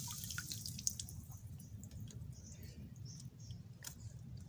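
Faint, scattered clicks and taps from a bamboo bubu crab trap being handled, one slightly sharper click about a second in.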